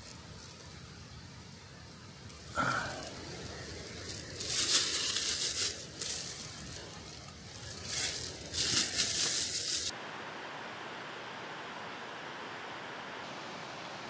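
Several short bursts of crinkling and rustling, the loudest about five and nine seconds in. About ten seconds in the sound cuts abruptly to a steady, even hiss.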